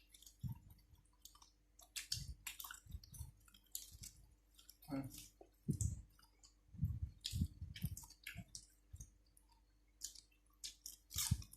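A person eating close to the microphone: irregular wet mouth clicks, lip smacks and chewing, with a few short low sounds from the mouth near the middle.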